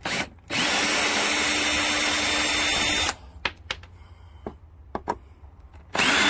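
Cordless drill/driver backing screws out of a window frame. A short blip, then the motor runs steadily with a fixed whine for about two and a half seconds, a few light clicks follow, and the motor starts again near the end.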